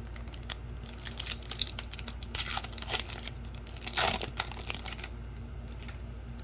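A hockey card pack wrapper being torn open and crinkled: a run of irregular crackling rips over a few seconds, loudest about a third of the way in and again past the middle.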